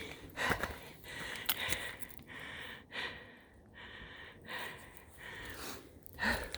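A person breathing hard in a series of heavy breaths in and out: the panting of a hiker near the end of a steep uphill climb.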